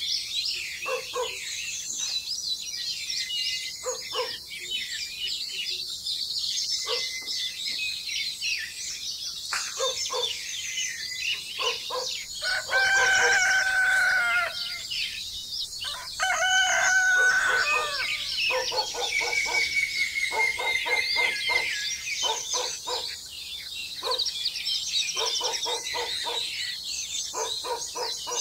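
A rooster crowing twice, two long loud calls about halfway through, over the steady chirping of small birds.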